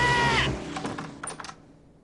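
Cartoon sound effects: a loud, high, held cry that breaks off with a slight drop about half a second in, followed by a quick run of clicks that fades out.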